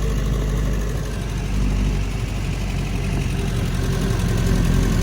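Restored Jeep's engine running steadily as it is driven slowly, heard from on board, getting a little louder toward the end.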